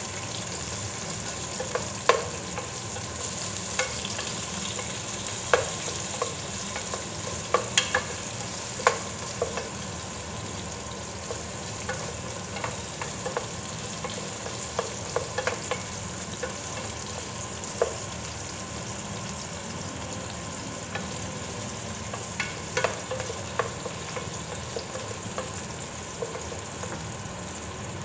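Onions and garlic sizzling in hot oil in an aluminium pot while a spatula stirs them, knocking and scraping against the pot's metal sides at irregular moments.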